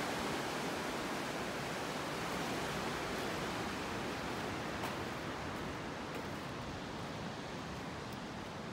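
Rushing whitewater of the Arkansas River: a steady, even wash of water noise that slowly fades.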